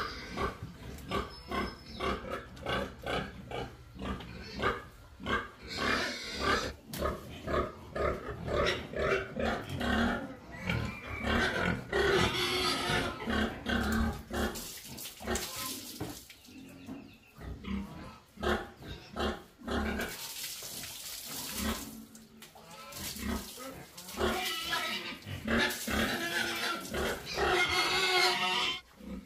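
Sow grunting in a quick run of short grunts, about three a second, broken by a few longer rushing noises in the middle.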